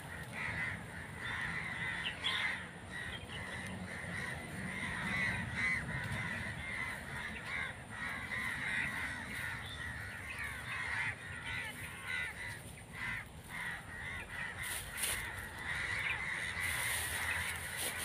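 Several crows cawing again and again in irregular short calls, one of them caught in a bird net.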